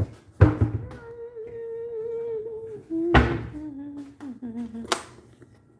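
A person humming a few long notes, a higher held note and then lower ones sliding down, while dishes thunk down on the kitchen counter twice.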